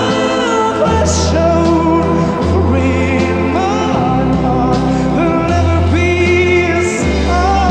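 Live band performing a slow rock ballad: sustained organ chords over a bass line that steps to a new note every second or so, with a male lead vocal.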